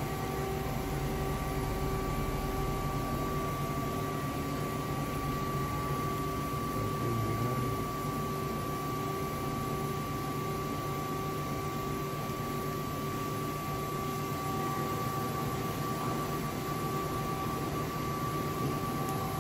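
2006 Okuma V80R CNC vertical lathe running: a steady machine hum with several constant whining tones while its axes move and the table starts to turn.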